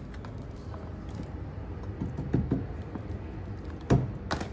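Soft scraping and a few light taps of a silicone spatula against a stainless steel pot and plastic tubs, the sharpest tap about four seconds in, over a steady low hum.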